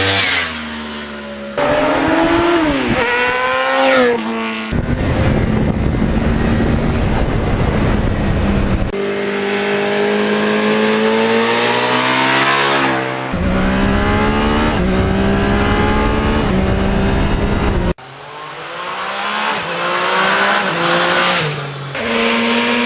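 Motorcycle engines revving and running up through the gears in several short clips, their pitch climbing and dropping. In one stretch a steady rush of wind and road noise covers the engine.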